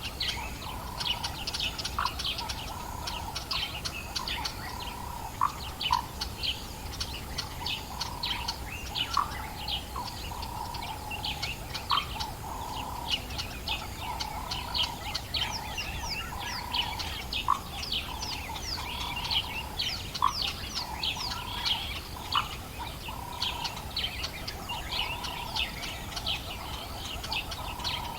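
Dawn chorus of many African bush birds chirping and trilling together, with a lower call repeating about once a second beneath them and a short rising whistle every few seconds.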